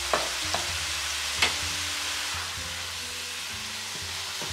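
Diced tomatoes and sofrito sizzling in oil in a nonstick pan, with a few sharp clicks in the first second and a half.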